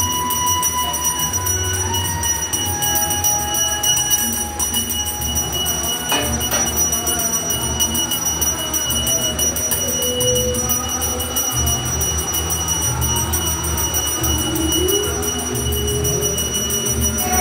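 Temple bells ringing continuously over a low, clattering rhythm, with faint wavering voices behind.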